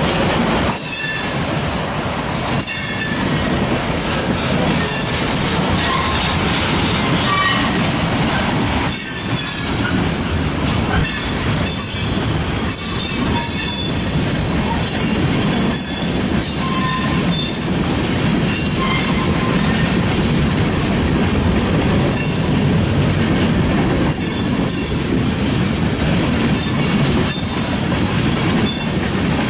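Freight train of tank cars rolling past close by: a loud, steady rumble and rattle of steel wheels on the rails, with brief high wheel squeals now and then.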